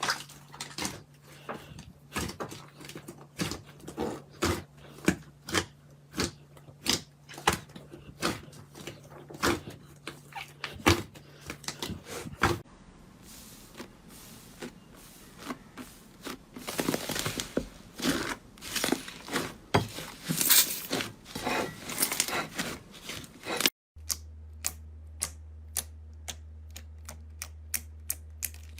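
Slime worked by hand, giving long runs of sharp clicks and pops, several a second, with brief changes in character where one clip cuts to the next.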